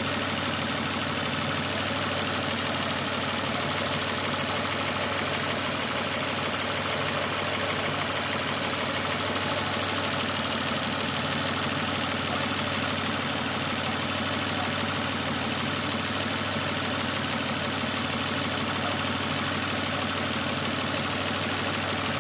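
Chevrolet Epica 2.0 engine idling steadily, with a tapping the owner puts down to knocking hydraulic lifters.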